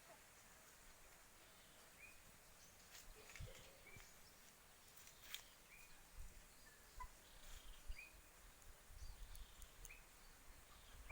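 Faint short chirps from a jalak (a starling or myna), repeated every second or two, with a few sharp clicks and some low thumps in the second half.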